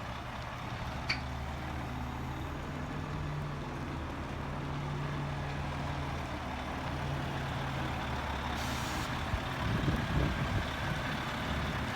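Engine of the vehicle towing a narrowboat trailer, running steadily at low revs while reversing. A brief hiss about eight and a half seconds in.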